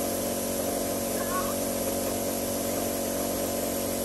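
Small electric air compressor running with a steady hum, inflating a giant latex balloon.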